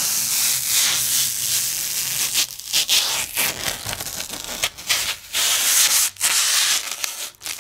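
Clear protective plastic film being peeled off the plastic panel of a Dyson 360 Heurist robot vacuum's charging station: a crackly, rasping hiss that runs in long pulls broken by short pauses.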